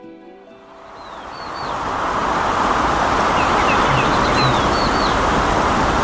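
Outdoor street ambience fading in over about two seconds, then holding steady: a constant traffic hum with small birds chirping now and then.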